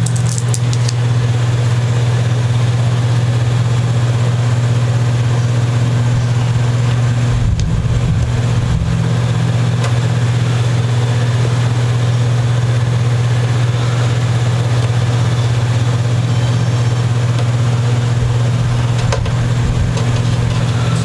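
A steady low hum at one unchanging pitch, with a brief low rumble about eight seconds in.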